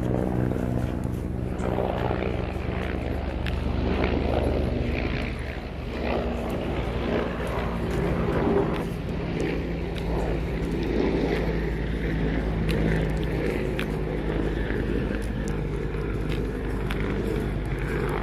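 A steady low engine drone, with a few faint taps from steps on a dirt path.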